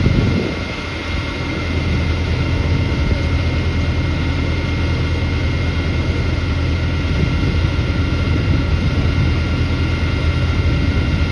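Steady drone of a running engine or machine, low and even, with a thin steady whine above it.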